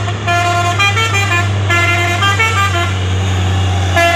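A truck's multi-note musical air horn (a 'telolet' horn) playing a quick tune, its notes stepping up and down, over the steady low rumble of a diesel truck engine.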